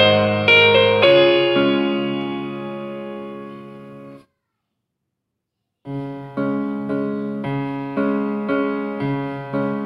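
Background piano music: a few notes and then a held chord that dies away. The music cuts to dead silence about four seconds in, then resumes about six seconds in with evenly repeated notes.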